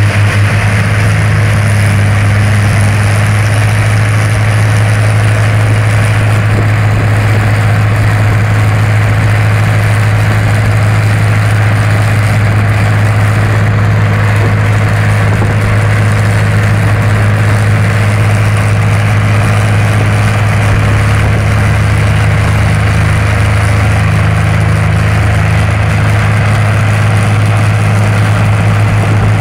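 Rolls-Royce Merlin, a supercharged 27-litre V12 aero engine, running steadily at a low, even speed with its propeller turning; a loud, deep, unbroken engine note.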